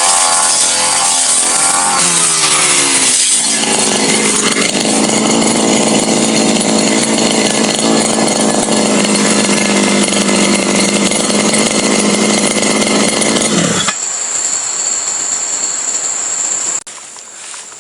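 Brush cutter with a metal grass blade running under load, its engine speed rising and falling, then held at high revs for about ten seconds. The throttle is let off about fourteen seconds in and the engine drops away, and the machine goes quiet near the end.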